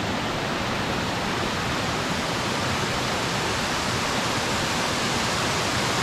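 Waterfall cascading down a rocky stream bed: a steady, even rush of water.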